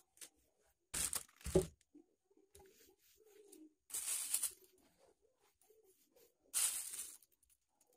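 Trigger spray bottle of water squirting onto a kitchen counter top in four short hissing bursts: about a second in, again half a second later, at about four seconds and near the end.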